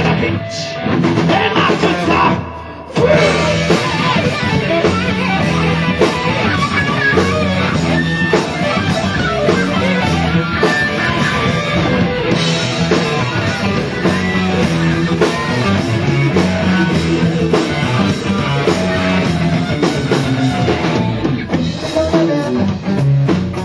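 Live rock band playing: electric guitars, bass and a drum kit together in a funk-metal song. The band thins out briefly about two seconds in, then comes back in at full level.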